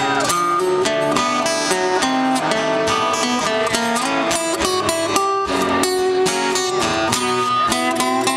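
Live guitar solo in a slow blues song: a run of quick picked single notes over a strummed backing.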